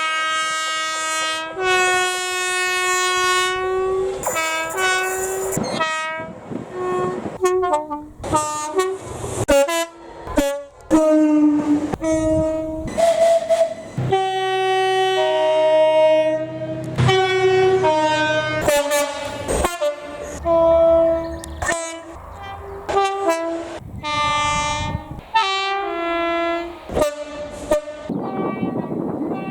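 Two-tone train horns sounding a long run of short and long blasts, the notes switching between high and low, some held for two or three seconds. A rushing noise comes near the end.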